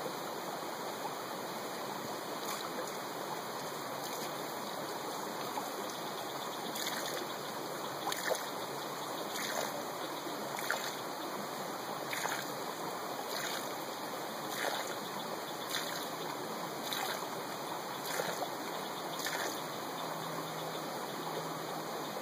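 Stream running steadily, and from about a third of the way in the strokes of a Katadyn Hiker Pro hand-pump water filter, a short sound about every second and a quarter.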